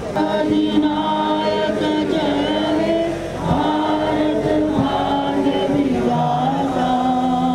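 A group of voices singing together in unison, a slow melody of long held notes.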